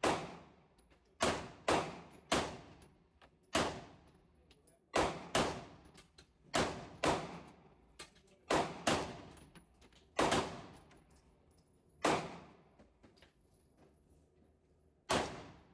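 Gunshots at a shooting range, about sixteen in an uneven string, some in quick pairs, each followed by a fading echo.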